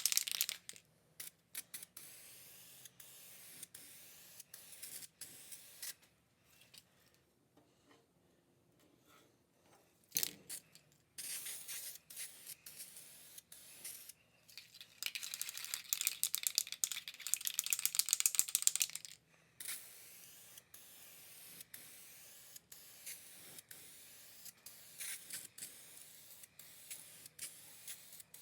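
Prep and priming of a sheet-metal seat pan: scattered rubbing and scraping of a rag on the metal, then aerosol filler primer spraying, with a short hiss a little before the middle and a longer one of about four seconds past the middle.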